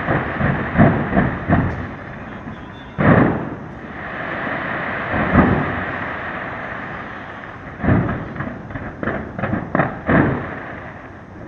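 Aerial fireworks bursting in a run of booms: several in the first couple of seconds, a heavy one about three seconds in and another past five, then a rapid cluster of bangs from about eight to ten seconds, over a continuous noisy rumble.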